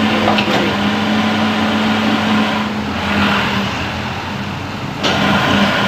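Hitachi Zaxis 200 excavator's diesel engine running with a steady hum. In the middle a large vehicle passes close by, its noise swelling and fading away.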